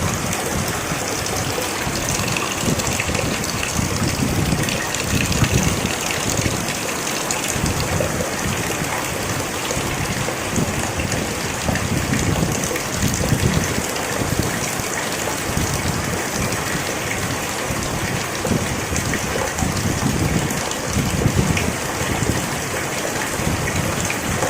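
Steady rain falling: a continuous loud hiss with uneven low swells coming and going.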